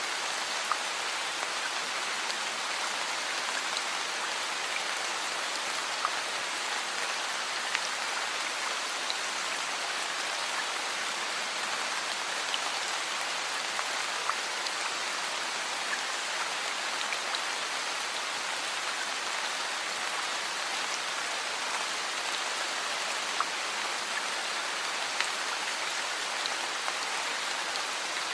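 Steady heavy rain, an even hiss with scattered sharper drop hits.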